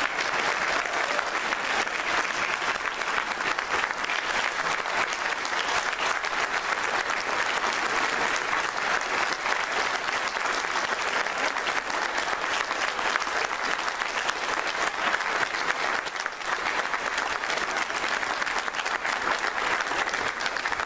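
A large audience applauding at length, a dense, steady crackle of many hands clapping: a standing ovation.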